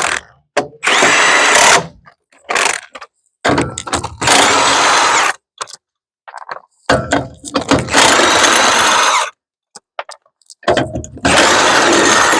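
Electric power tool run in four bursts of one to two seconds with short pauses between, its motor whine rising as it spins up at the start of each.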